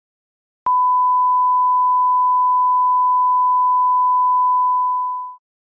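Broadcast test tone, the 1 kHz reference tone that goes with colour bars: one steady, pure, high beep. It starts suddenly with a click a little under a second in and fades out near the end.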